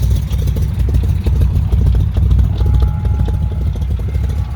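460 big-block Ford V8 idling with a steady low rumble. A faint thin whine joins about halfway through.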